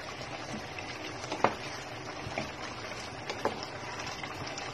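Chicken caldereta simmering in an open pot: a steady hiss with scattered sharp pops and ticks from the bubbling sauce, the loudest about a second and a half in.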